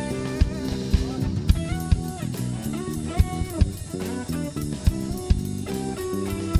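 Live band playing: a drum kit with a steady kick drum about twice a second under guitar, whose notes bend in pitch.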